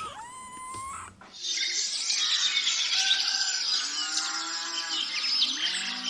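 A cat's meow trails off in the first second. After that comes a dense chorus of many small birds chirping, with a few low, drawn-out animal calls underneath, which cuts off near the end.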